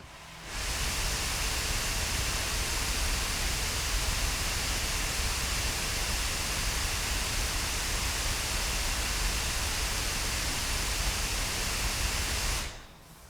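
MSI GE73 Raider RGB 8RF gaming laptop's cooling fans running flat out with Cooler Boost switched on: a steady rush of air with a faint whine in it, starting about half a second in and stopping shortly before the end.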